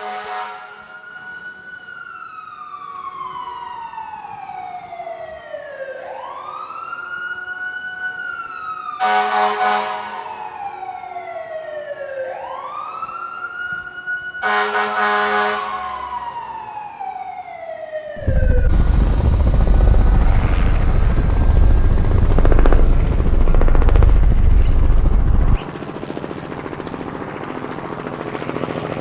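Emergency-vehicle siren wailing, its pitch sliding slowly down and back up, with two short horn blasts about a third and half of the way through. Then a loud rumbling rush takes over for about seven seconds and cuts off suddenly.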